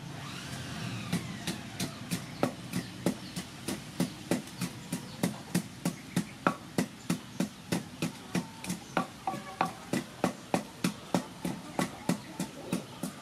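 Wooden pestle pounding chilies in a heavy wooden mortar: a steady run of dull knocks, about three a second, starting about a second in.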